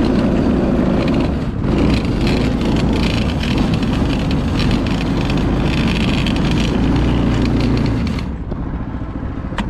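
Yerf-Dog 3203 go-kart's small engine running hard under load as the kart drives through snow; about eight seconds in it eases off and the sound drops.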